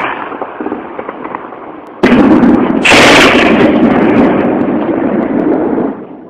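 Gunfire and heavy-gun fire in a firefight. The noise of a shot dies away at the start. About two seconds in, a sudden, very loud stretch of firing and blasts begins, with a second sharp crack a second later, and it lasts about four seconds before stopping shortly before the end.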